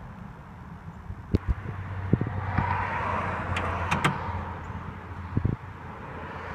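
A vehicle passing by, its noise swelling and then fading over a few seconds, with a few light clicks on top.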